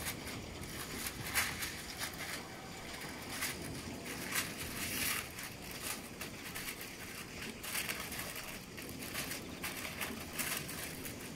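A large sheet of white paper being unrolled, shaken out and spread flat, rustling and crinkling in irregular handfuls every second or so over steady background noise.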